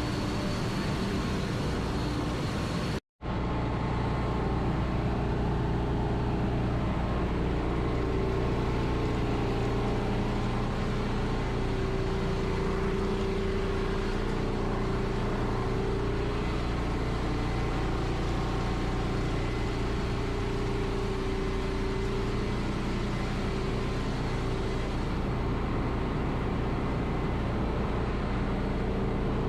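Tanker ship engine-room machinery running: a steady, loud mechanical drone with deep humming tones under a wide noise. It breaks off for an instant about three seconds in, then resumes unchanged.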